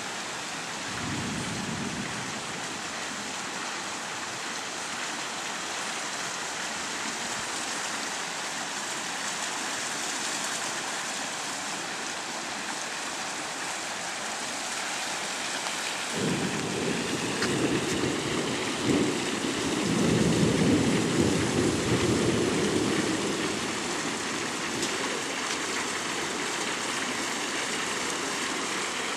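Thunder rumbling low over a steady rushing hiss of a thunderstorm. There is a short rumble about a second in, and a longer peal builds about halfway through, is loudest a few seconds later, then fades.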